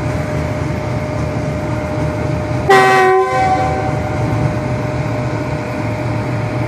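GEU-40 diesel locomotive running steadily with a low rumble and hum, sounding one short horn blast of several notes together about two and a half seconds in, lasting about half a second.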